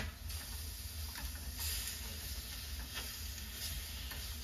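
Food sizzling on a hot hibachi cooking stone, a steady hiss with a few faint clicks of utensils.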